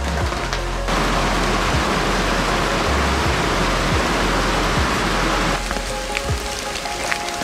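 Heavy rain falling steadily, with background music playing beneath it. The rain is loudest from about a second in until shortly before the end, after which single drops are heard more separately.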